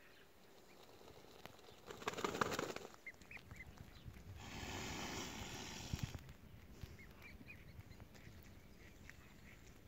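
Mute swan cygnets peeping in short, faint, high calls, in small clusters several times. Two louder stretches of rushing noise cover them for about a second each, early on and near the middle.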